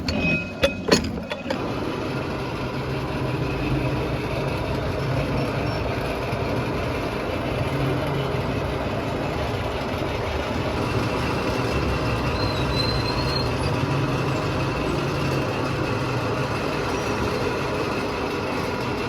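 A few sharp metal knocks in the first second and a half, then a machine running steadily with a low hum under a gritty mechanical noise.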